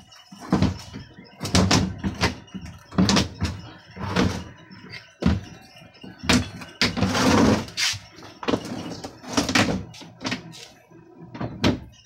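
Camel washing machine's hard plastic cabinet sections knocking and scraping against each other as they are pushed and fitted back together: a string of sharp knocks, with a longer scrape about seven seconds in.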